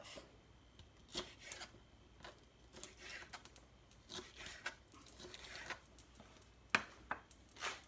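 Chef's knife slicing sweet peppers on a wooden cutting board: faint, irregular cuts and taps of the blade on the board. A sharper knock near the end as the knife is set down on the board.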